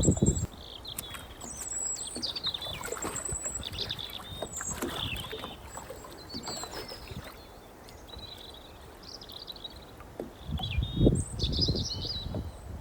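Small birds chirping and trilling over and over. A few low rumbling bursts come near the end, louder than the birds.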